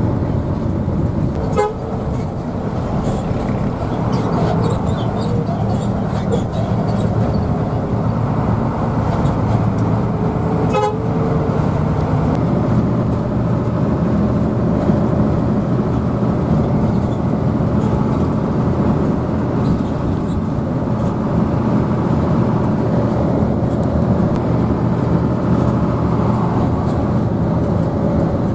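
Hino AK bus's diesel engine running steadily, with two short vehicle-horn toots, about one and a half and eleven seconds in.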